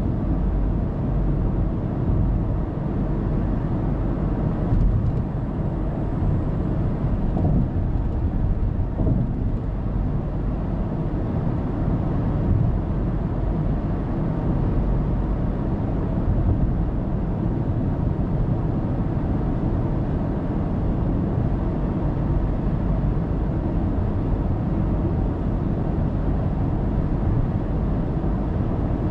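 Car cruising at a steady speed on an expressway: a constant low rumble of tyre and engine noise, picked up by a dashcam inside the car.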